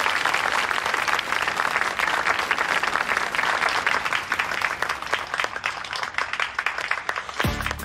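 An audience applauding, many hands clapping together. Near the end a band starts to play.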